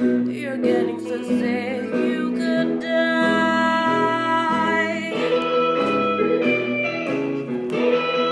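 Pop song backing music with chords and a melody line; one long held note sounds about three to five seconds in.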